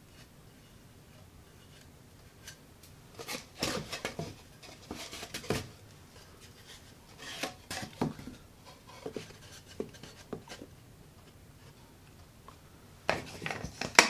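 Cedar birdhouse boards being handled and fitted together on a plywood work surface: scattered light wooden knocks and rubbing, with a cluster of knocks again near the end.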